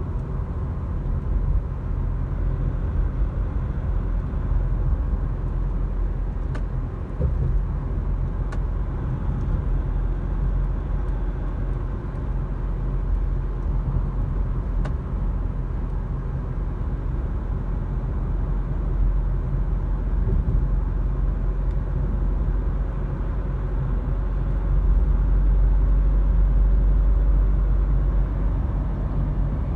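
Steady low rumble of a car's engine and tyres on the road while driving, heard from inside the cabin, a little louder for a few seconds near the end.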